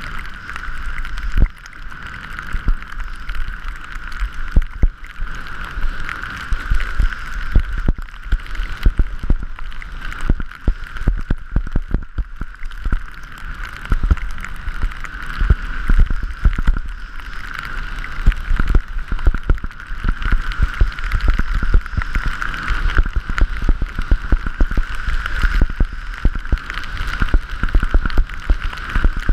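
Skiing heard from a wide-angle action camera: wind buffeting the microphone and skis sliding over snow in a steady rushing noise, with frequent small knocks and thumps as the skis ride over bumps.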